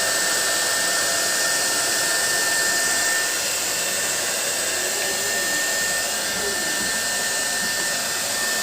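Hair dryer running steadily, blowing hot air onto vinyl fridge sticker to soften it: an even rushing hiss with a thin constant whine.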